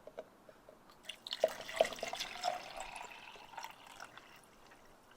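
Water being poured into a small plastic cup, the reservoir of a toy fire truck's water pump: a splashing trickle starts about a second in and fades away near the end, with a few drips.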